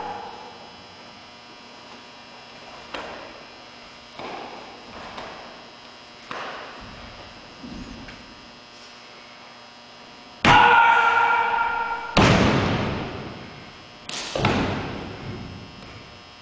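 Karate kata performed on a wooden gym floor: sharp thuds and snaps from strikes and footwork, echoing in the hall. About ten seconds in comes a loud kiai shout, followed by two heavy thuds.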